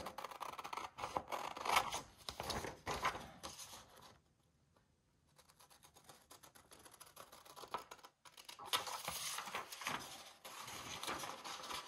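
Scissors cutting a paper template: a run of short snips, a pause of about two seconds in the middle, then more snipping.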